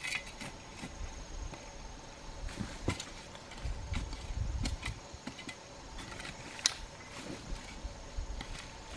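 Shovel digging into loose dry soil: scrapes and dull thuds with a few sharp knocks, the sharpest about two-thirds of the way in, over a faint steady drone of insects.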